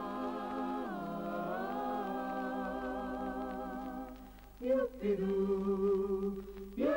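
Background music of long, held, wordless vocal notes, like humming or a cappella singing, gliding down once near the start. The line drops away briefly past the middle, then new held notes begin.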